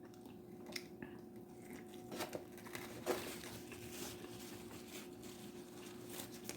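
Faint eating sounds: a few soft crinkles and clicks with chewing while someone eats a cheesesteak sandwich and fries, over a faint steady hum.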